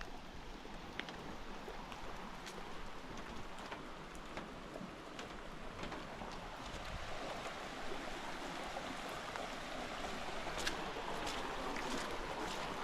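Steady rush of water from a small stream running high after storms, growing louder toward the end, with scattered light ticks.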